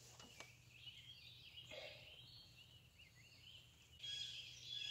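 Faint bird chirping and warbling, with a clearer, steadier bird call starting about four seconds in.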